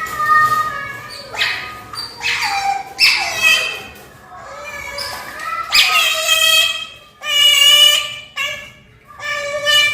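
Asian small-clawed otter begging for food with a run of high-pitched squeaking calls, some sliding down in pitch, and one longer, louder call about seven seconds in.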